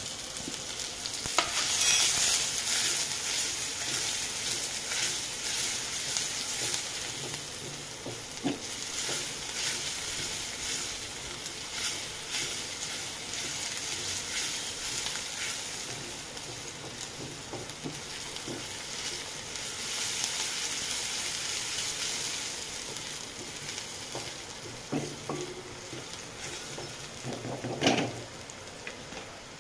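Chopped onion frying in hot oil in a stainless steel kadhai, sizzling steadily while being stirred with a silicone spoon, with short scraping stir strokes against the pan. A louder knock comes near the end.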